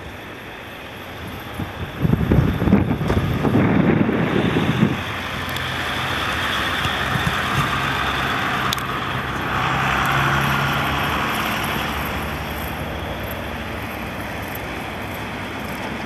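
Cars and a pickup truck driving along a snow-covered road: a steady engine-and-tyre sound that swells about ten seconds in and slowly fades. For a few seconds near the start, wind buffets the microphone with a heavy, uneven rumble.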